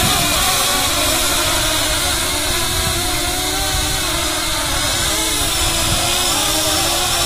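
A 7-inch FPV quadcopter's brushless motors and propellers running with a steady buzzing whine, its pitch wavering slightly as the throttle shifts, while it skims along on its wheeled landing gear.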